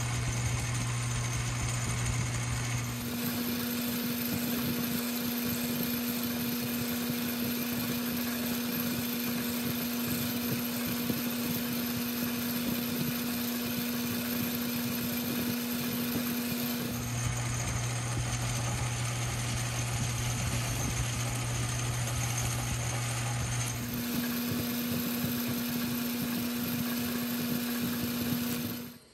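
Metal lathe running steadily, turning brass hex stock as it is faced, filed and sanded. The motor hum jumps in pitch abruptly three times and cuts off just before the end.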